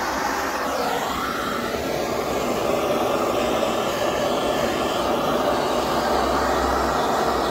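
Handheld gas torch burning with a steady rushing flame, held on asphalt-based sound deadener to heat it so it softens into the seams.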